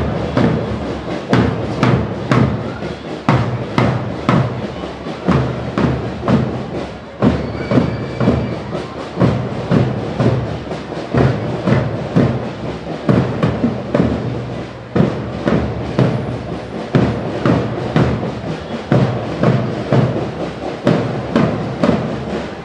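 Marching band drums beating a steady march rhythm, two to three strokes a second, with heavy bass-drum thumps under sharper snare hits.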